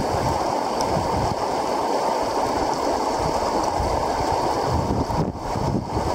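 Steady rush of river water running through shallow, rocky shoals.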